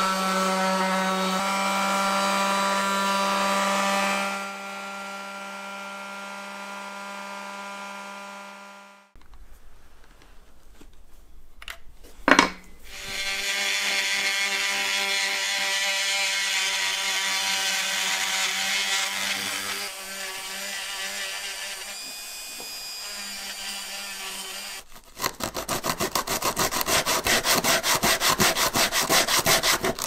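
Workshop tool work in edited clips. A power tool's motor runs steadily, then cuts off about nine seconds in. After a sharp click, a tool grinds or sands against the work, and near the end come rapid rubbing strokes, about nine a second.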